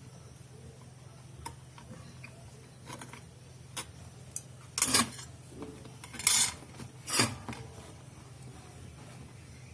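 Small hard parts and tools handled on a workbench: a few light clicks, then three louder short clatters or scrapes in the middle, over a low steady hum.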